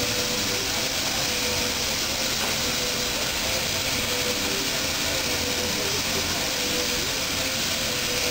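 Steam locomotive standing in steam: a steady hiss and rumble from the idling engine, with a faint hum underneath.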